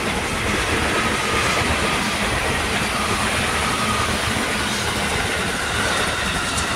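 KRL commuter electric train passing close by: a steady, loud rush and rattle of its wheels on the rails, with faint thin tones above it.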